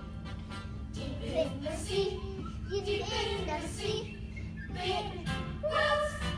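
A child singing a song, the voice gliding between short phrases, over a steady low hum.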